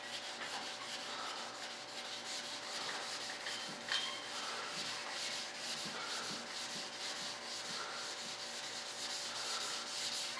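Sandpaper worked by hand back and forth over the primed surface of a model jet's wing plug, in quick repeated strokes, sanding the primer flat. A brief knock about four seconds in.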